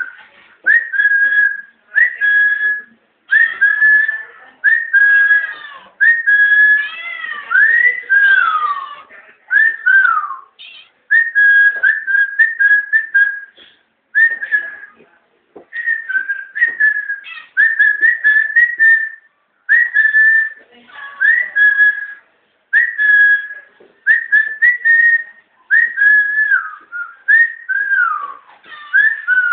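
Whistling in short repeated notes, many sliding up or down, with brief gaps between them, about one a second.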